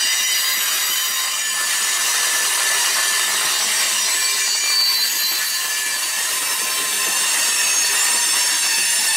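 Boxcars of a long mixed freight train rolling past, their steel wheels squealing steadily on the rail in several high-pitched tones.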